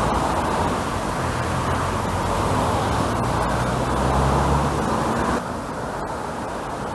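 A motor vehicle's engine hum and road noise close by, steady, cutting off suddenly about five seconds in.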